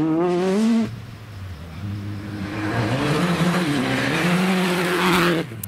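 Rally car engines at high revs on a gravel stage: one car's engine note climbs and cuts off abruptly just under a second in, then a Citroën DS3 rally car approaches, its engine note rising and falling while the hiss of gravel under the tyres grows louder, until that too cuts off abruptly near the end.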